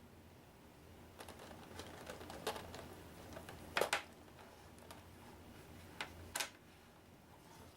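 Hard plastic board-game pieces clicking and clacking as they are handled and set down: a run of light clicks, then a louder clack about four seconds in and two more near the end.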